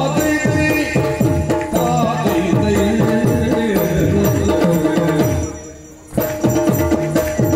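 Yakshagana puppet-show accompaniment music: drums playing rapid strokes that slide down in pitch over a steady drone, with some jingling. The music drops away briefly about five and a half seconds in, then comes back at full level.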